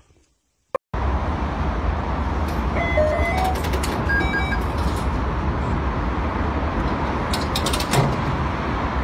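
Tabby cat purring loudly and steadily close to the microphone while being stroked, starting about a second in.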